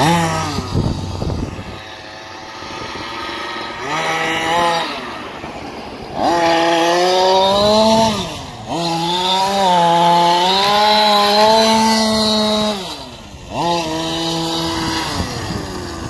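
King Motor X2 1/5-scale short course truck's 36cc two-stroke engine running as the truck is driven: low revs at first, a short rev, then two long stretches at high revs with a brief dip between, before it backs off and picks up again near the end.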